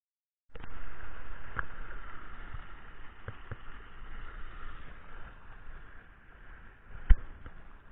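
Shallow river water running over stones, a steady rushing that starts after a moment of silence and slowly fades. A few short knocks, the loudest about seven seconds in.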